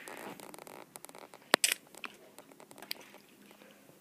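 Lego train parts being handled and connected: faint plastic rustling and a few small clicks, the sharpest about one and a half seconds in.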